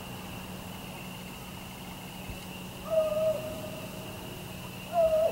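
Two hooting calls from an unidentified animal in the dark, each a flat, steady tone: a short one about three seconds in and a second, louder one about two seconds later that carries on. A faint steady high whine runs beneath them.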